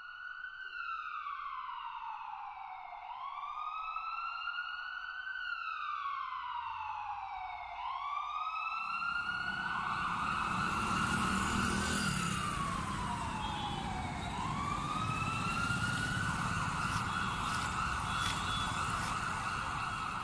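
Emergency-vehicle siren wailing in slow cycles, its pitch sliding down and sweeping back up about every four to five seconds. From about nine seconds in, a low street-traffic rumble runs under it.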